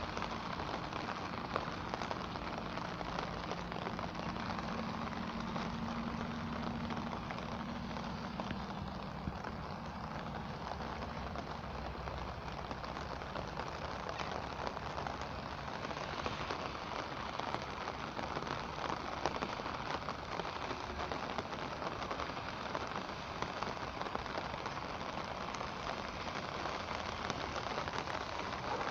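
Steady rain falling, a dense even hiss of many small drop hits, with a faint low hum under it for about the first twelve seconds.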